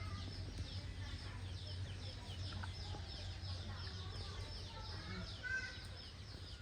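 Chickens clucking softly over a dense chorus of quick, high-pitched chirps, with a steady low hum underneath.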